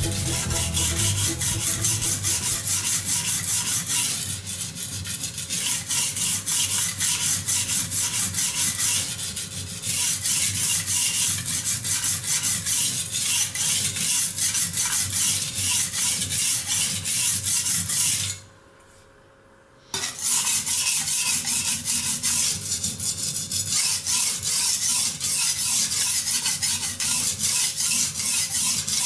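A steel cleaver blade being ground on a coarse silicon carbide combination whetstone: rapid, rhythmic back-and-forth scraping strokes. The scraping stops abruptly for about a second and a half, two-thirds of the way through.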